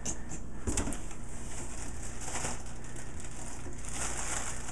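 Rustling and crinkling as hands rummage through packing in a cardboard shipping box, with a few brief louder scrapes.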